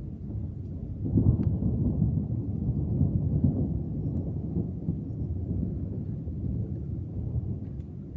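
Thunder rumbling: a low rumble swells about a second in, stays loudest for a couple of seconds, then slowly dies away.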